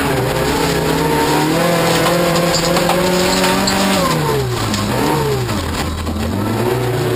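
Toyota Corolla rallycross car's engine heard from inside the cabin, pulling hard with its pitch climbing slowly for about four seconds. The note drops away sharply just after that, then climbs again near the end.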